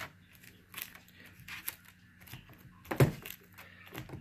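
Light rustling and clicking of sticky tape wrapped on a finger, dabbing at a plastic laptop screen protector, with one louder thump about three seconds in.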